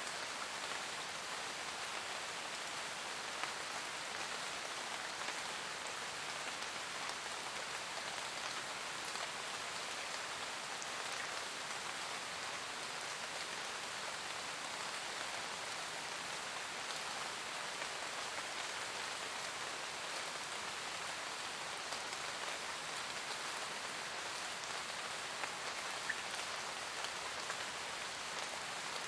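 Steady rain falling in a forest, a constant hiss of drops on leaves with a few louder single drops standing out.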